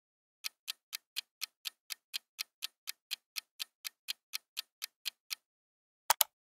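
Clock-style countdown ticking sound effect: sharp, even ticks about four a second for roughly five seconds on silence. Two quick clicks follow near the end.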